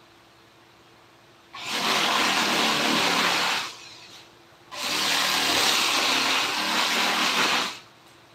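A power tool switched on for two bursts, about two and then three seconds long, each starting and stopping abruptly, with a short pause between.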